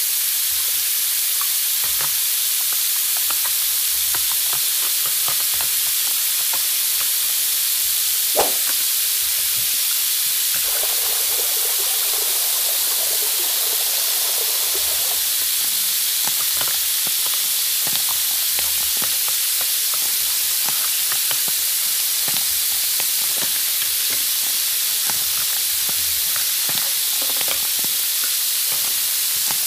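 A steady sizzling hiss like food frying on a grill, scattered with light clicks of plastic toy food, and one sharper click about eight seconds in.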